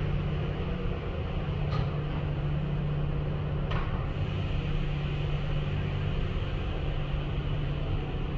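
Steady low hum and rush of automatic car wash machinery, heard through the tunnel's viewing window. Two brief clicks, about 2 and 4 seconds in.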